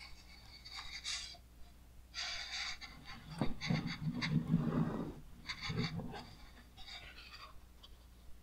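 Large, stiff pages of a big coffee-table art book being handled and turned: paper rustling and sliding in several bursts, the fullest and loudest in the middle.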